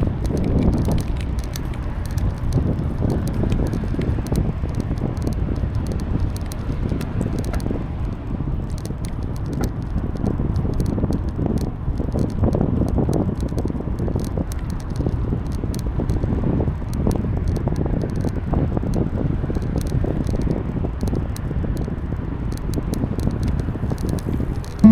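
Wind rushing and buffeting over the microphone of a moving bicycle, with scattered light clicks and rattles from the bike and path.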